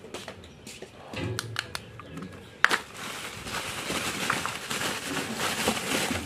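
Plastic bubble-wrap bag crinkling and rustling as it is pulled and handled, with a sharp click a little over halfway through, then a steady crackle. Small handling clicks come before it.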